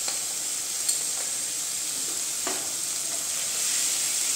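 Cabbage and rice sizzling steadily as they fry in mustard oil in a kadai, with two light knocks of the spatula, about a second in and again about two and a half seconds in.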